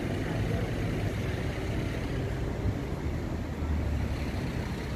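A car driving slowly past close by, its low engine rumble growing louder near the end, over a steady background of street traffic.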